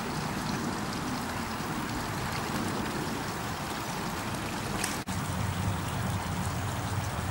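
Steady rush of running water, with splashing from a swimming otter; the sound drops out for an instant about five seconds in.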